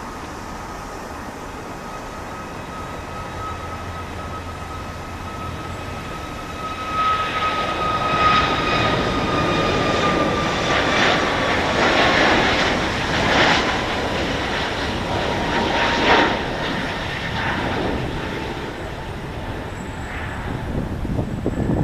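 Boeing 737 MAX 8's CFM LEAP-1B turbofan engines at takeoff power, passing by. A steady whine slowly falls in pitch. From about seven seconds in, a louder, rough crackling roar builds, peaks, and eases off again near the end.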